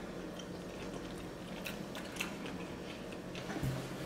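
Two people chewing egg rolls and a rice-paper spring roll, with scattered small crackles and mouth clicks and one soft low thump near the end.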